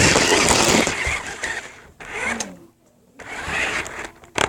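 RC truck running with its motor and wheels churning in rough bursts, heard up close from a camera mounted on the truck. It goes quiet briefly near the middle, and there is a sharp click near the end.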